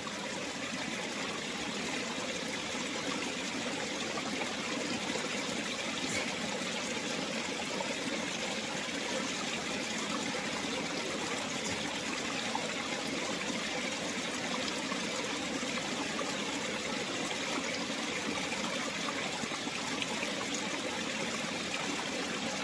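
Flowing water running steadily, with a few faint ticks.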